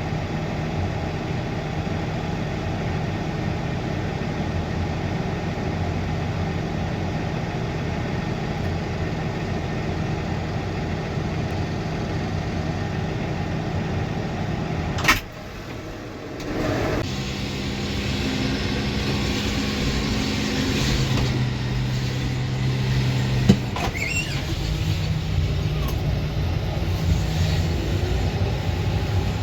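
Heavy farm machinery engine running steadily under load. About halfway there is a sharp click and a brief dip in level, after which the engine note settles at a different steady pitch.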